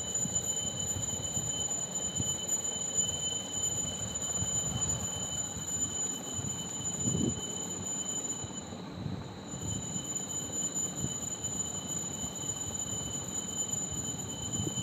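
Eggplant strips frying in a wok, turned and scraped with a metal spatula: an irregular low scraping over a hiss. A steady high-pitched whine runs over it and drops out briefly a little past the middle.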